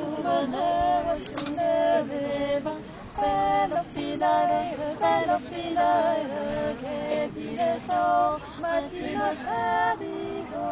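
Women's voices singing a traditional Occitan spinning song (chant de quenouille) unaccompanied, held notes gliding between pitches in a slow, free-flowing line.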